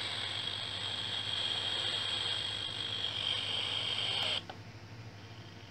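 Static hiss from the small loudspeaker of a homemade BK1079 FM radio receiver with no station tuned in. The hiss cuts off suddenly about four seconds in, as the seek button is pressed and the chip starts scanning for a station.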